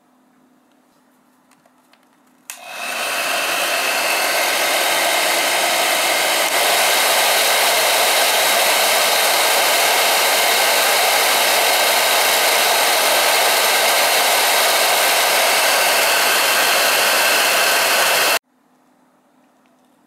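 Nobby NB2501 1200 W negative-ion hair dryer switched on with a click about two and a half seconds in, then running loudly as a steady rush of air with a faint fan whine. It gets a little louder a few seconds later and stops suddenly near the end.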